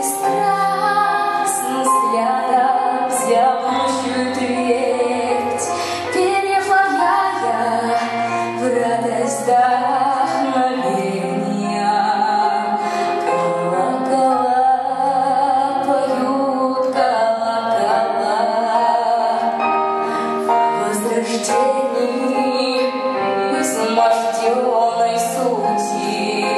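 A song: a woman singing with vibrato over instrumental accompaniment with a steady beat.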